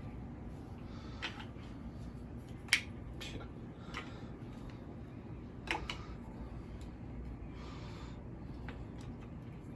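A few scattered sharp clicks and knocks of statue parts and packaging being handled, the loudest about a third of the way in and another a little past the middle.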